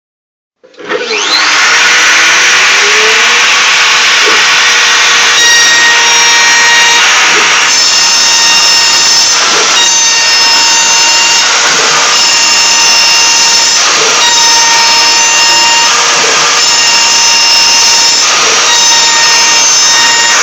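Power tool spinning a Käsefräse rasp-style milling cutter through wood. It starts up within the first second and then runs steadily at high speed, with a whining tone from about five seconds in and brief dips roughly every two seconds.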